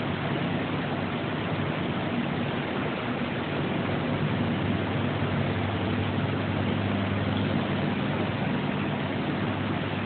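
Steady low machine hum with a constant hiss, no knocks or impacts.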